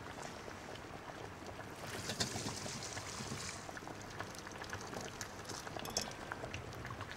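Broth being poured from a casserole through a wire-mesh strainer into a stainless steel pot, with vegetables and meat sliding into the sieve. The pouring hiss is strongest between about 2 and 3.5 seconds in, and there are a few light clicks of cookware.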